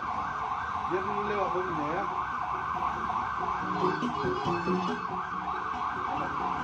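A vehicle siren in a rapid rise-and-fall yelp that starts suddenly and keeps going steadily, typical of an escort vehicle's siren.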